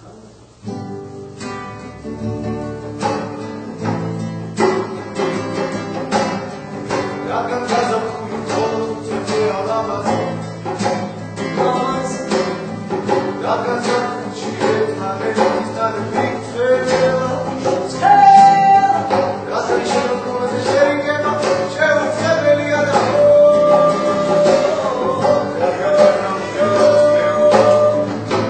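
Classical guitar strummed in a lively rhythm, with a man singing along.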